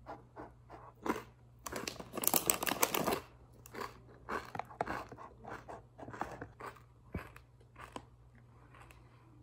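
Close-up crunching and chewing of crackers eaten with hummus, a series of short crisp crunches. About two seconds in there is a denser, louder stretch of crunching and rustling lasting over a second.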